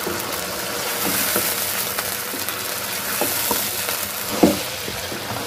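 Yogurt-marinated chicken pieces sizzling in hot oil with garlic in a pan, with a spatula stirring and knocking against the pan a few times.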